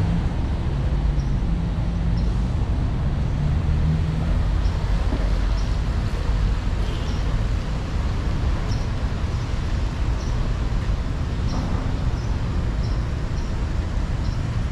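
Steady rumble of city street traffic, with faint short ticks recurring about once a second.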